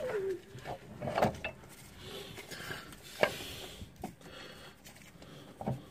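Scattered metal clicks and light knocks from a driveshaft's outer CV joint being handled and drawn out of the wheel hub splines, with one sharp click about three seconds in.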